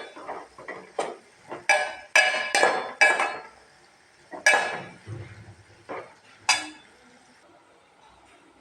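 Metal kitchen utensils and dishes clinking and clattering: a series of sharp, ringing knocks, several in quick succession in the first three seconds, then a few more spaced out, stopping near the end.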